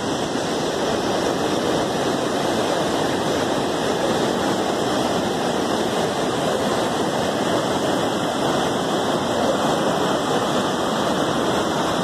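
River rapids and waterfall water rushing over rock ledges: a loud, steady, even rush of water.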